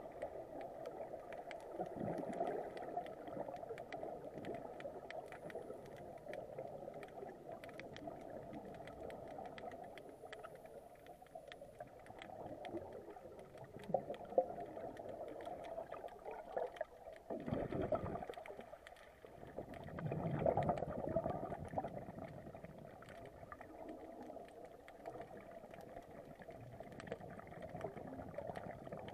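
Muffled underwater ambience heard through a diving camera's housing: a steady murky rush with scattered faint clicks, swelling a few times with the bubbling of scuba divers' exhaled air.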